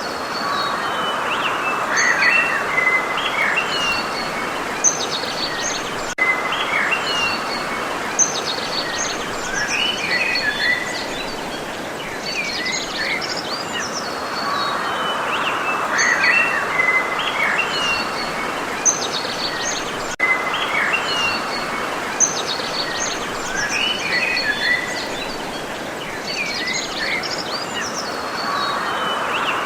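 Several small birds chirping and trilling in quick, varied phrases over a steady background hiss.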